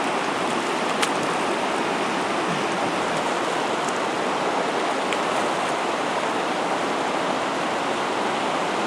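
Steady rush of river water running fast and shallow over a rocky riffle, with a small click about a second in.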